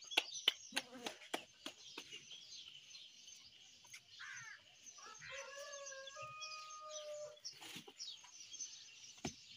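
Hands slapping roti dough flat in a few quick claps at the start, then a rooster crowing once, about halfway through, over steady chirping of small birds.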